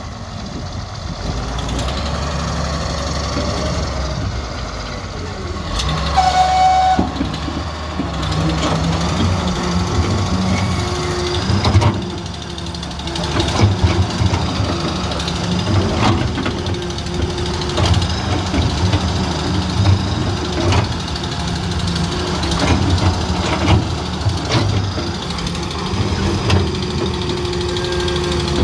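Diesel engine of a Daewoo/Doosan wheeled excavator running under load as it digs, swelling and pulsing as the hydraulics work, with scattered knocks and scrapes from the bucket biting into and dragging through dry soil. A brief high tone sounds about six seconds in.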